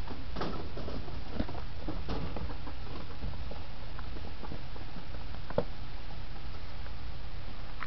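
Pet rat eating and shuffling about: scattered faint clicks and scratches over a steady background hiss.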